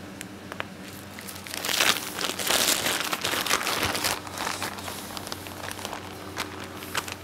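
Green plastic piping bag crinkling as it is handled and refilled with choux paste, loudest for about three seconds from a second and a half in, with scattered small crackles before and after. A steady low hum runs underneath.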